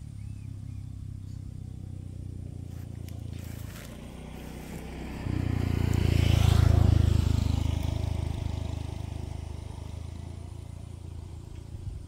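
A motor vehicle engine running at low speed as it approaches. It grows suddenly louder about five seconds in, passes close by around six to seven seconds, then fades away.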